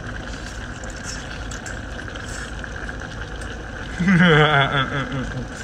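A steady engine hum, with faint chewing clicks early on. About four seconds in, a man laughs briefly, his pitch falling in short steps.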